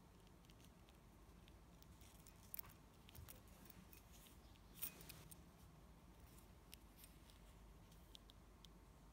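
Near silence with a few faint clicks and ticks from a small metal knot-tying tool and monofilament fishing line handled in the fingers while tying a nail knot, the loudest click about five seconds in.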